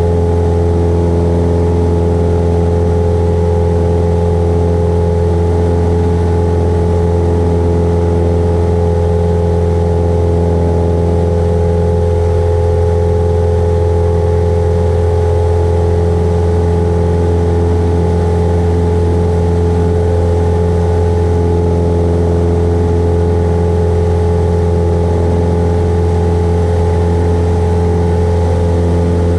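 Cessna Skyhawk's piston engine and propeller running steadily during the climb after takeoff, heard inside the cockpit.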